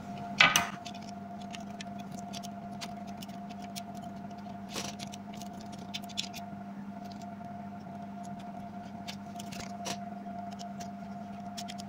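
Scattered light clicks and taps of small circuit boards, a ribbon cable and the plastic laptop casing being handled and fitted together, with a sharper click about half a second in and another near five seconds. A steady low hum sits underneath.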